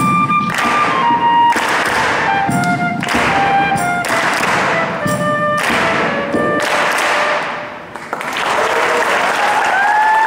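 Closing bars of a live band song with a children's choir clapping in time, stretches of clapping alternating with short descending melodic runs. The music stops about eight seconds in and audience applause starts, with a tone that glides up and holds over it.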